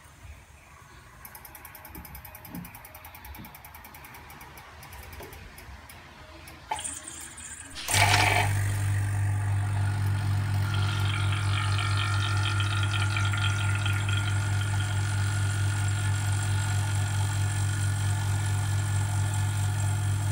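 Faint handling clicks as the wax injector's pressure regulator knob is turned, then about eight seconds in the vacuum pump of a digital vacuum wax injector switches on with a sudden start and runs with a steady low hum and a fast, even pulse, drawing a vacuum inside the injector before the wax is pushed into the rubber mould.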